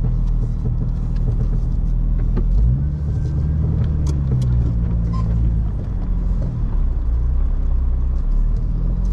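Jeep Wrangler LJ's engine running at low speed while maneuvering a trailer. It revs up about two and a half seconds in, holds, and eases back off a few seconds later, with scattered light clicks over it.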